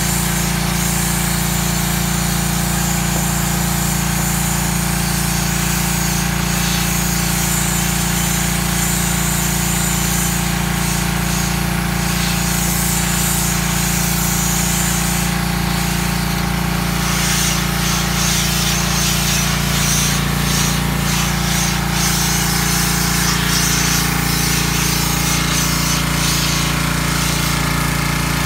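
Pressure washer running steadily with a constant machine drone, its jet hissing against the underside of a pontoon tube while cleaning crud off the hull. The hiss of the spray swells and fades as the wand moves.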